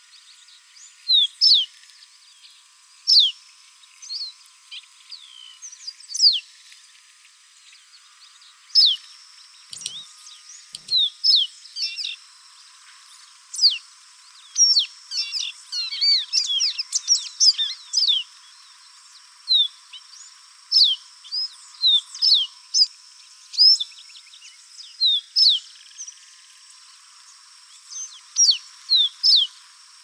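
Pearly-bellied seedeater singing: a fast, irregular run of short, high whistled notes that each sweep downward, coming in clusters that bunch up thickly about halfway through. The recording has no low end.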